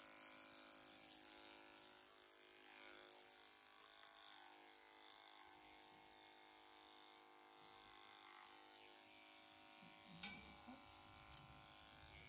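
Electric horse clippers running with a faint, steady buzz as they cut the hair on a horse's muzzle and chin. Two sharp clicks come about ten and eleven seconds in.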